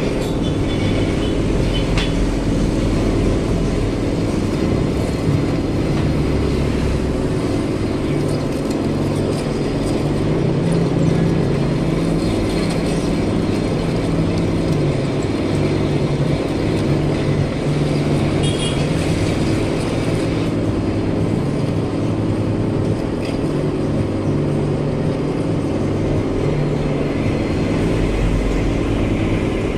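Metal lathe running steadily, its motor and gearing humming as it turns a steel pipe against the cutting tool.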